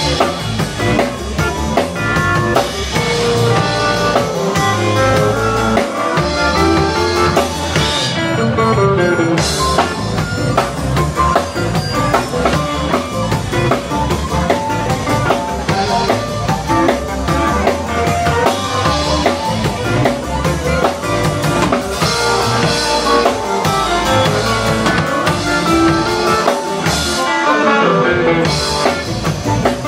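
Live rock band playing: electric guitar, electric bass and drum kit, with harmonica.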